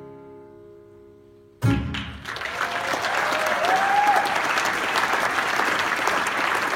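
The song's final chord rings and fades, then an audience bursts into applause about a second and a half in and keeps clapping, with a brief cheer in the middle.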